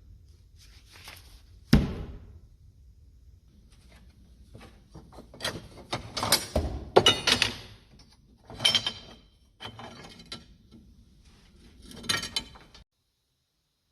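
A sharp thud about two seconds in, then several bursts of knocking and clattering, as of hard objects being handled and set down. The sound cuts off abruptly near the end.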